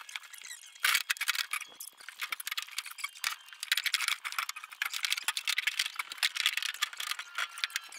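Fast, dense, high-pitched rattling and clattering with no low end, irregular rather than to a beat, as parts and blocks are handled on a metal trailer.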